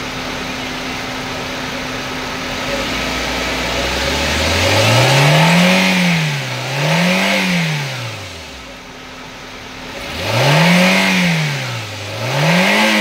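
Maruti Suzuki Zen Estilo's engine idling with the AC on, then revved in two pairs of quick throttle blips, each rising and falling back. No compressor chirp under the revs: the worn AC compressor clutch has been replaced.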